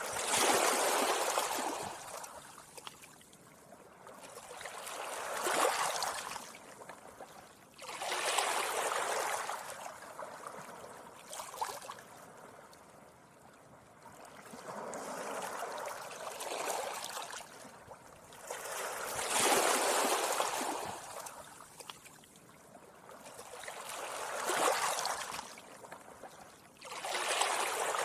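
Small, gentle sea waves washing up a beach and drawing back, a swell of hiss every four to five seconds.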